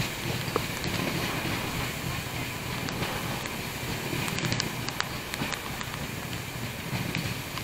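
Moving passenger train's running noise heard from beside the coach: a steady rumble of wheels on rail mixed with wind buffeting the microphone, with a few light clicks scattered through it.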